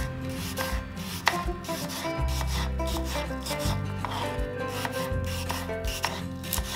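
Small kitchen knife slicing peeled apple quarters into wedges on a wooden cutting board: a series of crisp cuts, each ending in a light knock of the blade on the board, over soft background music.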